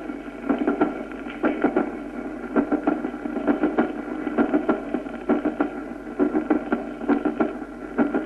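Recorded heart sounds from aortic stenosis, beating in a steady run of repeated beats. The second heart sound is split paradoxically: pulmonary closure comes first, then the delayed aortic closure.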